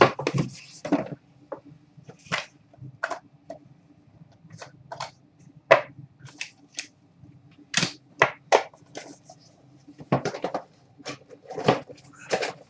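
Trading-card packaging and cards being handled: an irregular run of short clicks, taps and rustles as the next book-style box is opened and the cards are pulled out, over a faint steady hum.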